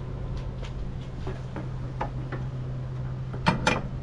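Aluminum jet ski cargo rack being set back onto its mounting base on a Sea-Doo's rear deck: light scattered metal ticks and taps, with two louder knocks close together near the end.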